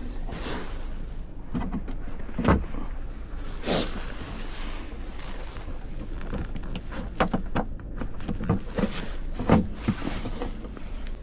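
Hand work on an outboard motor as screws are fitted and tightened: scattered short clicks and knocks of tools and metal parts, spaced irregularly over a low steady hum.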